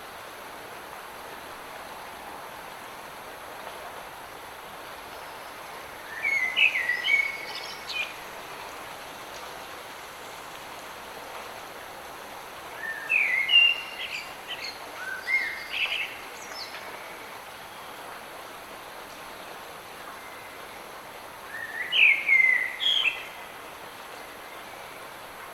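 Light rain falling as a steady hiss, with a songbird singing three short warbled phrases, about six, thirteen and twenty-two seconds in.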